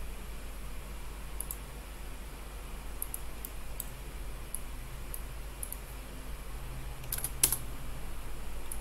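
Computer keyboard keys and mouse buttons clicking at irregular intervals, about a dozen sharp clicks with the loudest about seven and a half seconds in, over a low steady hum.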